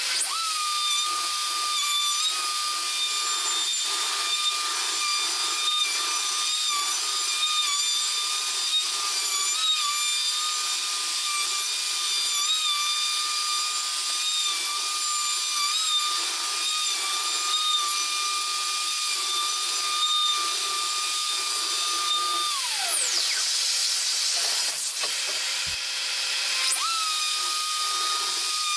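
Festool plunge router on a milling sled, running at a steady high whine as it flattens an oak slab with epoxy-filled cracks, over a constant rushing noise. About 22 seconds in the whine falls away, and about four seconds later it rises back to full speed.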